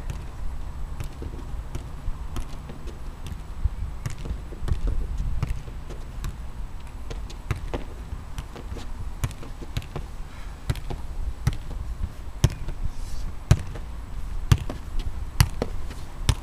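Football being juggled in keepy-ups: the ball thuds irregularly off foot, thigh and head, about once or twice a second.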